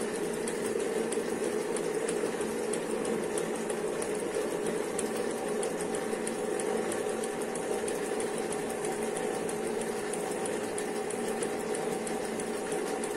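Circular linking machine (kettel) running steadily as it links a knitted waistband onto the trousers: an even mechanical hum with a light, regular ticking.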